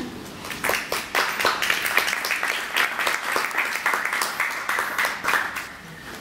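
Small audience applauding: dense hand-clapping that starts about half a second in and dies away near the end.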